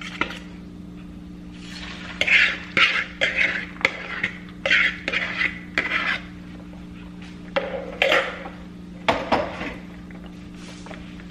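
Dishes and cutlery clattering and clinking as they are handled, in quick runs from about two seconds in and again near the end, over a steady low hum.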